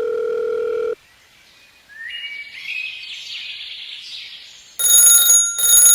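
A steady buzzing tone cuts off about a second in. It is followed by faint bird-like chirping and warbling, then near the end a loud bell starts ringing in pulses, like an alarm clock or bicycle bell.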